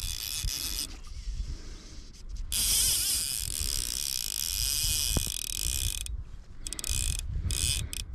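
Fly reel's ratchet drag clicking rapidly as a hooked rainbow trout pulls line off it. It starts about two and a half seconds in, runs for a few seconds, stops briefly, then comes back in short spurts near the end.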